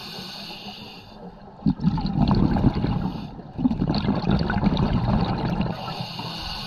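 Muffled underwater bubbling and gurgling from a scuba diver's exhaled bubbles. It swells about one and a half seconds in and fades near the end.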